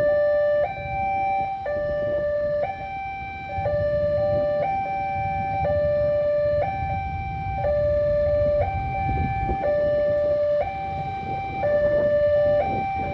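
Railway level crossing barrier alarm sounding: an electronic siren alternating between a lower and a higher tone, each held about a second, over a low rumble.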